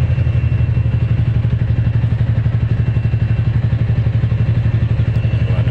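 A vessel's engine running steadily at a constant speed with a low, fast, even throb.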